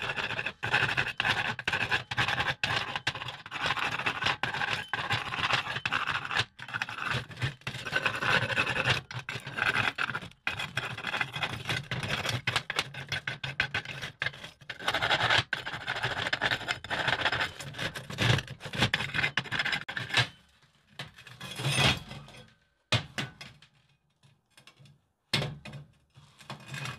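Wire brush scrubbing slag off freshly laid stick-weld beads on a steel plate: rapid, continuous scratching strokes that thin out to a few separate scrubs after about 20 seconds.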